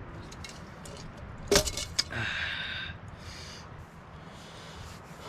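Glassware clinking: a few light clicks, then a sharp clink about a second and a half in and another half a second later, followed by a short hissing rush.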